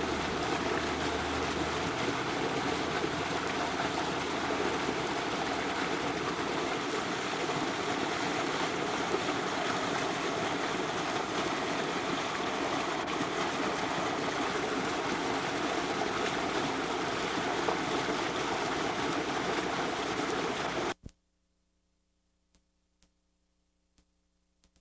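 Shallow creek water running steadily, a continuous rushing hiss that cuts off suddenly near the end.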